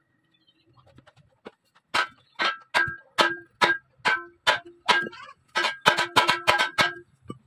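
Hand hammer striking a fishing boat's metal propeller blade, the blade ringing with a metallic tone after each blow. The blade is being hammered back to an even curve because a wrong pitch setting made the propeller vibrate at low revs. After a few light taps come about two blows a second, quickening near the end.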